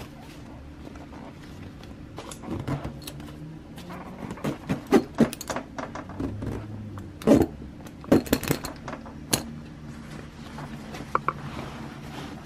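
A run of irregular clicks and knocks, a few of them loud, over a steady low hum.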